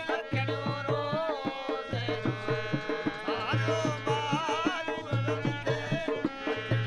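Folk music on harmonium and dholak barrel drum: steady held harmonium notes under a wavering melody line, with deep drum strokes coming round about every second and a half.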